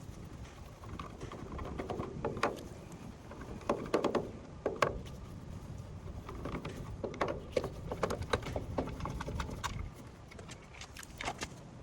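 Irregular clicks, taps and knocks of hands handling tools and parts, with a few sharper knocks near the middle.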